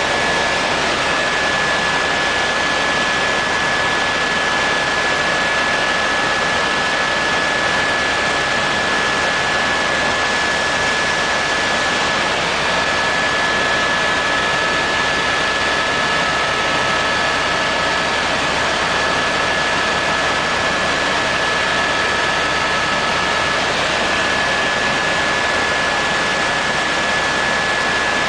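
Helicopter cabin noise in flight: a loud, steady rushing drone of engine and airflow, with a constant high whine. A second, fainter whine comes in partway through and drops out again later.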